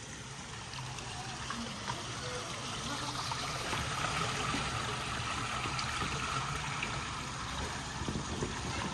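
Swimming-pool water trickling and lapping steadily as a child moves through it on an inflatable dolphin float.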